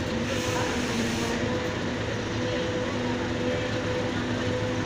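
Truck-mounted mobile crane's diesel engine running steadily as it hoists a long steel I-beam.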